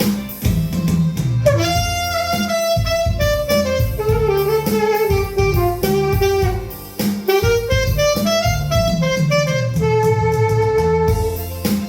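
Saxophone playing a slow melody of long, sliding notes over a pop backing track with drums and bass. The saxophone comes in about a second and a half in and holds a long note near the end.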